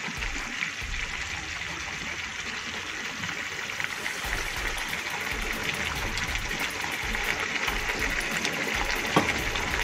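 Meat and tomato paste frying in a pot: a steady sizzle with fine crackling as the sauce cooks down and thickens.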